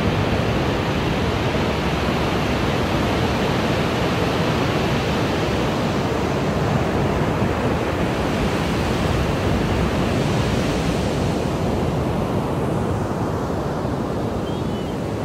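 Ocean surf breaking and washing up a sandy beach: a steady, unbroken rush of wave noise.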